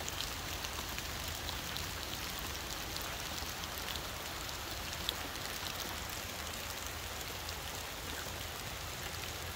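Steady rain falling on leaves and ground, an even hiss with scattered drips, one sharper tick about five seconds in.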